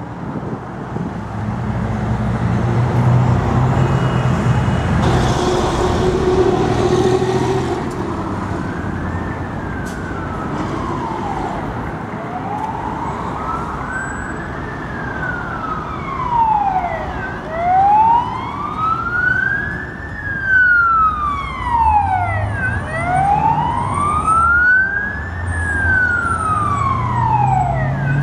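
Emergency vehicle siren wailing, its pitch slowly rising and falling about every five and a half seconds. It comes in faint around eight seconds in and grows louder, over a low rumble of street traffic that is loudest in the first seconds.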